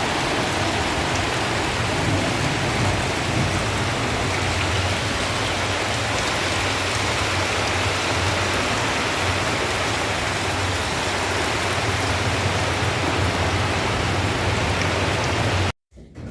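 Heavy rain falling hard, a dense steady hiss with a low drumming underneath, which cuts off abruptly near the end.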